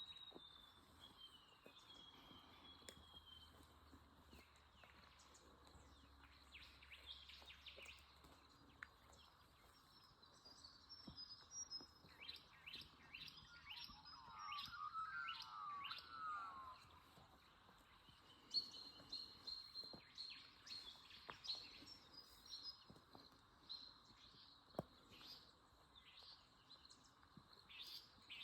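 Faint wild birdsong: several birds chirping and whistling, with a warbling call about halfway through, over a steady low background hiss.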